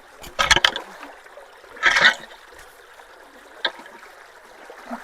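Creek water running and trickling steadily through freshly unclogged road culverts. Several short scrapes and thumps cut across it, the loudest about two seconds in, with a sharp click later on.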